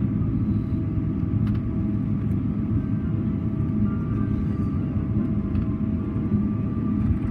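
Steady low rumble and hum inside the cabin of a Boeing 777-300ER taxiing after landing, its engines at idle.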